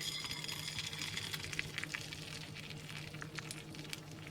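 Idli batter sizzling on a hot pan: a steady hiss with many small crackling pops.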